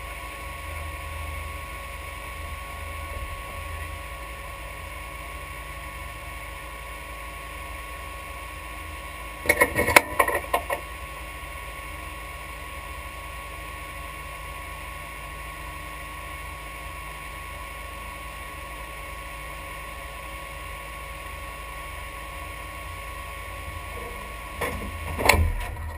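Steady mechanical hum with a few faint constant whines inside a parked race car's cabin, broken by a short cluster of clattering knocks about ten seconds in and again near the end.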